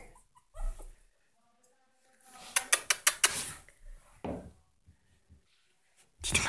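Yorkshire terrier puppies making small whimpers and yips among scattered short noises, with a run of quick sharp clicks about two and a half to three and a half seconds in.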